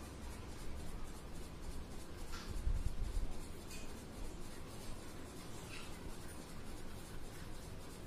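Crayon scribbling back and forth on paper held on a clipboard, a steady scratchy rubbing, with a louder low bump about three seconds in.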